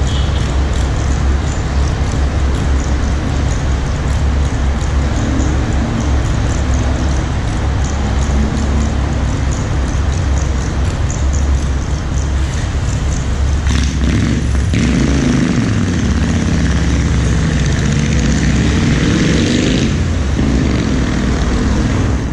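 Car engine and cabin noise, a steady low rumble while stopped, then the engine pitch rises several times as the car pulls away and accelerates, from about two-thirds of the way in.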